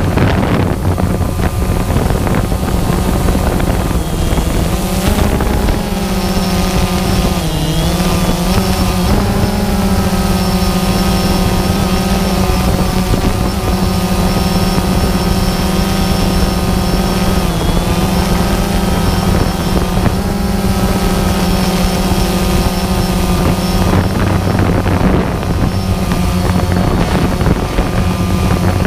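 Multirotor drone's electric motors and propellers humming steadily, heard from the camera on board, with the pitch dipping and recovering briefly a couple of times as the motors change speed.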